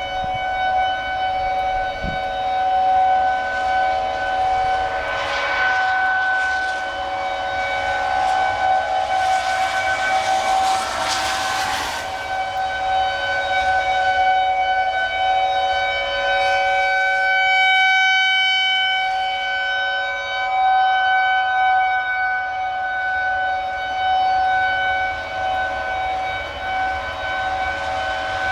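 Outdoor tornado warning siren sounding a steady, single-pitch tone, its loudness rising and falling a little; the warning signal for a tornado. Partway through, a rushing noise swells under it and cuts off.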